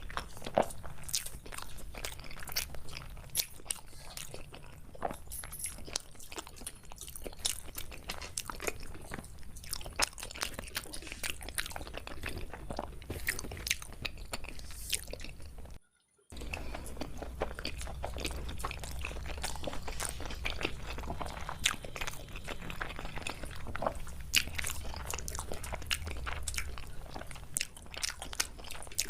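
Close-miked eating of chicken biryani: chewing and biting with many small, irregular crunchy clicks over a steady low hum. The sound cuts out briefly about halfway through.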